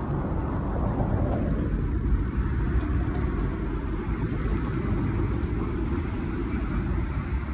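A steady low rumble, growing duller after about a second and a half.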